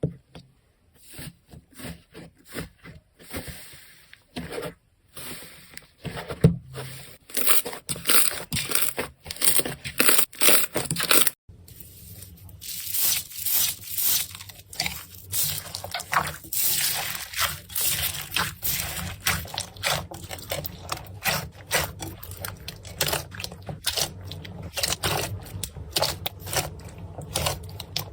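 Slime being squeezed and worked by hand, giving a dense run of sticky pops and crackles. The sound breaks off briefly about eleven seconds in, then the crackling starts again.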